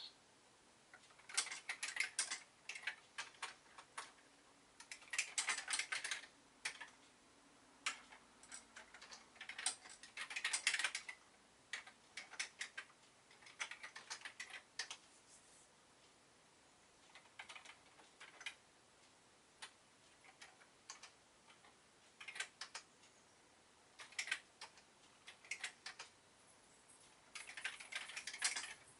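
Typing on the keyboard of a Schneider CPC 464 home computer: quick runs of mechanical key clicks in bursts of a second or two, with short pauses between lines.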